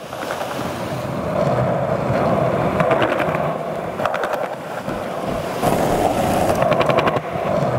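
Skateboard wheels rolling over smooth concrete: a steady rolling rumble, with short runs of rapid clicking a few times along the way.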